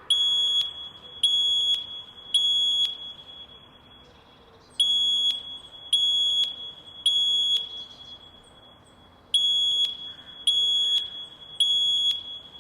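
Fire alarm sounding the temporal-three evacuation signal: three high-pitched electronic beeps, a pause, then the group again, three groups in all.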